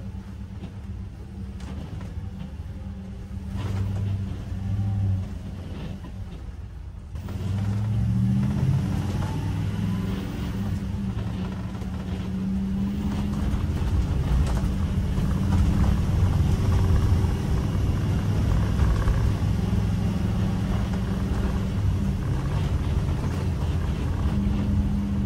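Ford E-series motorhome engine heard from inside the cab: a low, steady hum while waiting, then about seven seconds in it gets louder as the vehicle pulls away, with engine and road rumble as it drives on.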